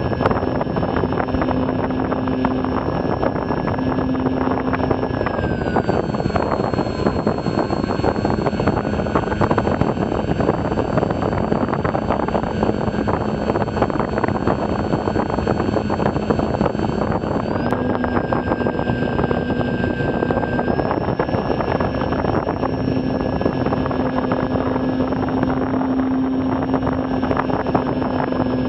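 Motor and propeller of a Mercury Matador radio-controlled model plane in flight, heard from a camera mounted on the plane, with steady wind rush. The motor note drops in pitch about five seconds in and rises again near eighteen and twenty-one seconds.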